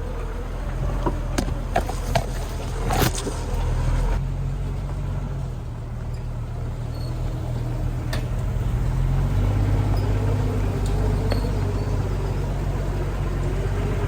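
A stock Jeep's engine running at low trail speed, with several sharp knocks and rattles in the first few seconds as it bumps over rough ground. The engine note drops a little about nine seconds in.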